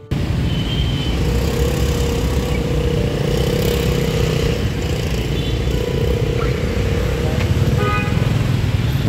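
Close-range motor scooter and car traffic: small motorbike engines running in a crowd of scooters, with a steady engine drone through most of it.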